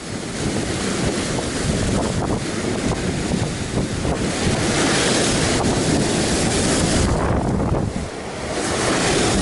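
Rough surf breaking and washing against a rocky shore, with wind buffeting the microphone.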